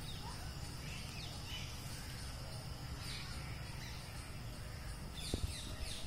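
Outdoor ambience with faint, scattered bird calls and chirps over a steady low rumble, and a few short downward-sliding calls near the end.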